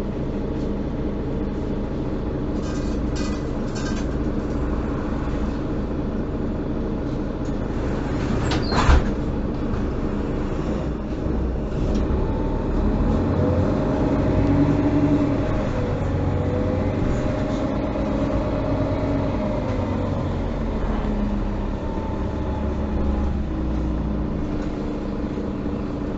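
Mercedes-Benz O530 Citaro city bus's diesel engine and drivetrain heard from inside the bus while it drives between stops, the engine note rising and falling. A sharp knock about nine seconds in.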